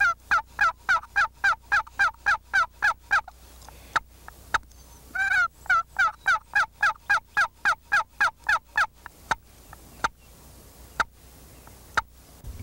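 Turkey box call worked under a neck apron, running two fast, even series of hen yelps at about six notes a second, then a few single short clucks.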